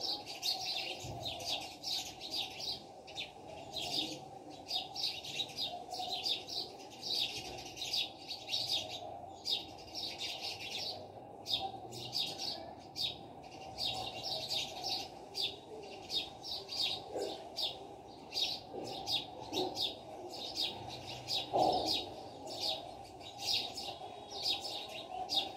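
Small birds chirping, a dense and continuous twittering of rapid short high notes, over a steady low background hum.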